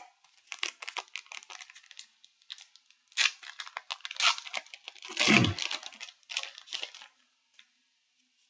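Foil trading-card booster pack being torn open and crinkled: a run of crackling rips and rustles, loudest about five seconds in, that stops about seven seconds in.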